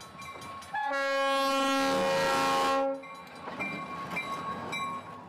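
A freight train's diesel locomotive sounds one long horn blast about a second in, lasting about two seconds, as it passes close by. After the horn, the wheels rumble and clatter over the rails.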